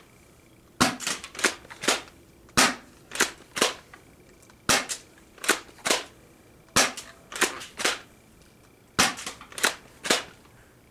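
Spring-powered airsoft pump shotgun being fired and pumped over and over. Sharp clacks come in groups of two to four about every two seconds, the shots mixed with the pump racking back and forward.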